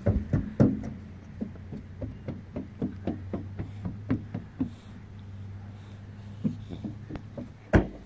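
Children's footsteps running on a wooden footbridge and boardwalk deck: a quick, irregular series of hollow knocks that grow loudest near the end as a child runs up close. A low steady hum sits underneath for a few seconds in the middle.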